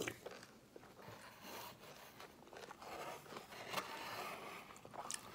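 Faint sounds of eating cereal: chewing and crunching, with a plastic spoon scraping and clicking against a bowl a few times.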